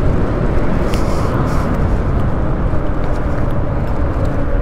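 Steady wind and road noise from riding an ONYX electric moped, with wind buffeting a body-worn microphone. A faint steady tone sits under it, and a few faint clicks come about a second in and again later.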